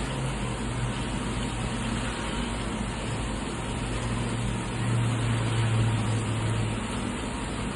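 Steady rain hiss with no break, under a low hum that swells about five seconds in and fades a second or two later.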